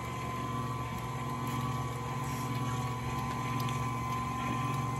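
KitchenAid Classic Plus stand mixer running steadily, its wire whip beating ricotta batter in a steel bowl: an even motor hum with a faint steady whine.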